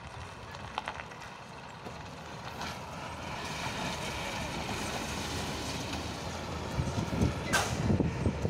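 Diesel minibus driving past on a dirt road, its engine and tyres on the gravel growing louder as it comes close. Near the end, gusts of wind buffet the microphone, and a brief high sound falls in pitch about seven and a half seconds in.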